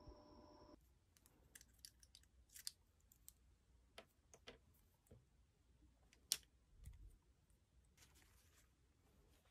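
Faint handling sounds of nail tools on a desk: scattered small clicks and taps, one sharper click about six seconds in, and a brief paper rustle near the end. A held music tone cuts off under a second in.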